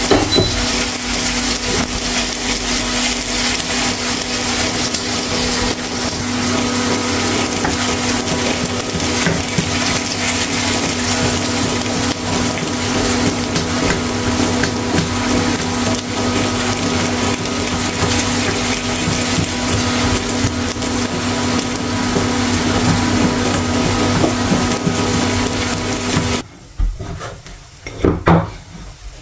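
Steady whirring hum of a kitchen appliance's motor or fan running, which cuts off abruptly near the end. A few short knocks follow as dough is worked in a ceramic bowl.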